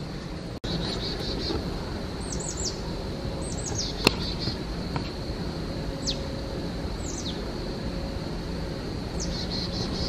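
Wild birds calling outdoors: several short, high calls that slide downward, repeated throughout, over a steady high insect hum. There is one sharp click about four seconds in.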